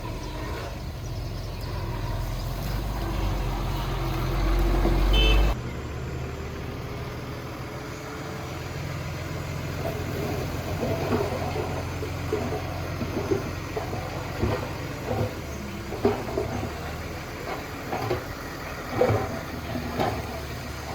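Heavy diesel engine of earthmoving equipment running, its rumble building and then cutting off abruptly about five seconds in. A lower engine rumble runs on, with a series of short knocks and clanks in the second half.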